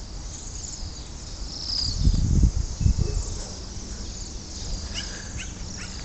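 A flock of Bohemian waxwings calling all at once: many high, thin, trilling calls overlapping. A low rumble on the microphone about two seconds in.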